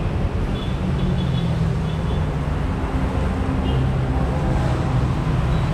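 Rain falling on a wet road with traffic: a steady hiss of rain and tyres over the low hum of a vehicle engine running.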